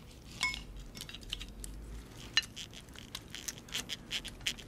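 Knives and forks clinking and scraping on dinner plates as food is cut. Many light ticks run throughout, with two louder ringing clinks, one about half a second in and one near the middle.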